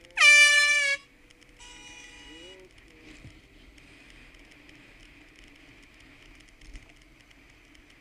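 A cyclist's air horn gives one short, loud blast of just under a second, dipping in pitch as it starts and then holding steady. About half a second later a quieter horn-like tone sounds for about a second.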